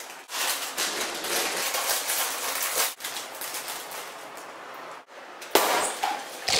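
A Doritos chip bag crinkling and crackling loudly in the hands, in several stretches cut together. A sharp crunch of a tortilla chip being bitten comes near the end.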